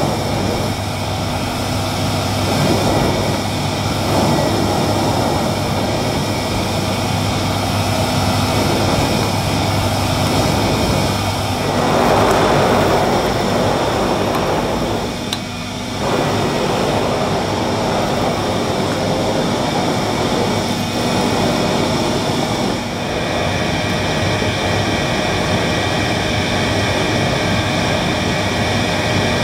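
A 1957 Hoover Constellation model 822 canister vacuum cleaner running steadily while its floor nozzle is pushed over carpet. The sound swells about twelve seconds in and dips briefly a few seconds later as the nozzle moves.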